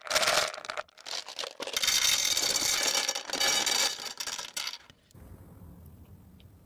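Maltesers chocolate malt balls poured from their tub, rattling and clattering into a glass bowl: a short spill at the start, then a longer pour of about three seconds.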